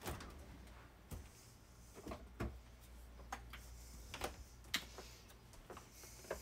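Scattered light clicks and knocks from things being handled, about nine at irregular intervals, over a faint steady low hum.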